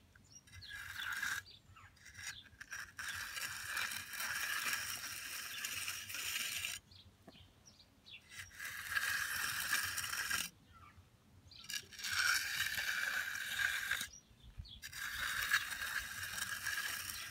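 Steel hand edger scraping along the edge of wet, freshly placed concrete in strokes of a few seconds each, with short pauses between them.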